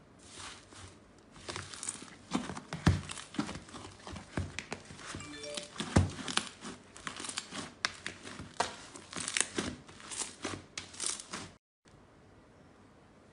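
Hands squeezing, kneading and pulling apart thick red slime in a bowl: a dense, irregular run of small crackling clicks and pops, a few louder snaps among them. The sound stops abruptly near the end.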